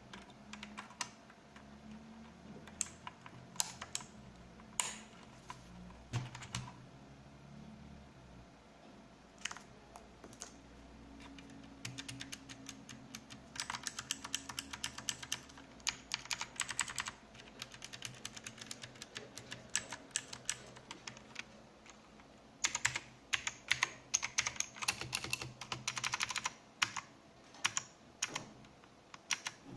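AULA F2012 mechanical keyboard being typed on: single key presses at first, then fast runs of clacking keystrokes around the middle and again near the end.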